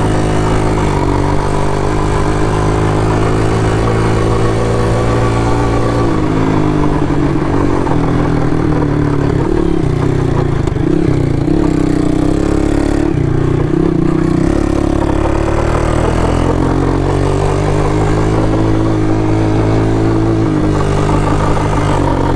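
Honda ATC 200ES three-wheeler's single-cylinder four-stroke engine running while being ridden, pitch rising and falling with the throttle. It revs higher and more unevenly through the middle, then settles back.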